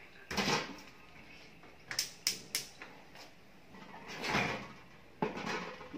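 Cookware being handled on a gas stove: a few sharp clicks and knocks of a metal saucepan, tray and dishes being moved, three of them in quick succession about two seconds in, with a brief sliding scrape about four seconds in.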